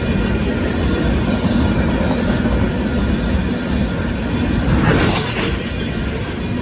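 Union Pacific freight train of hopper cars rolling past, a steady low rumble of wheels on rail, with a brief burst of clanking about five seconds in.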